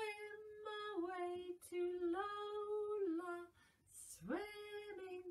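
A woman singing a simple children's song unaccompanied, a string of held notes stepping down and back up, then her voice swooping sharply upward about four seconds in.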